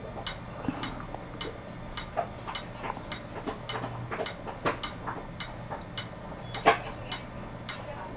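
Faint, even ticking, about two ticks a second, over a steady low hum, with a few sharper clicks about two, four and a half and six and a half seconds in.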